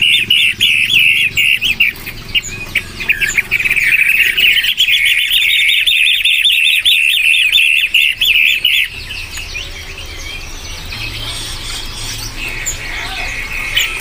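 Caged pentet matahari shrikes calling: a fast run of harsh repeated notes, several a second, which stops about nine seconds in and gives way to softer, scattered chirping.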